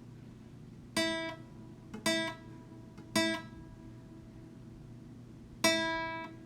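A guitar chord strummed four times: three short strums about a second apart, then after a pause one longer, ringing strum, tapping out Morse code dots and a dash.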